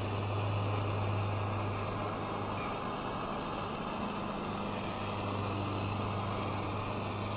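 Handheld propane torch burning steadily with a continuous rushing flame, held on an oak pallet-wood strip to scorch and darken it.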